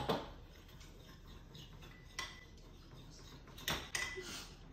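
A spoon clinking against crockery a couple of times, about two seconds in and again near the end, each clink ringing briefly; light kitchen clatter in between.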